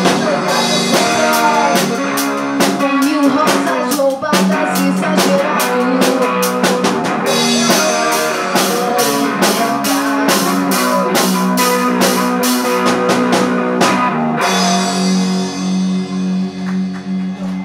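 Live rock band with drum kit and electric guitar playing a song's closing section. About 14 seconds in the drumming stops and a final held chord rings out and fades.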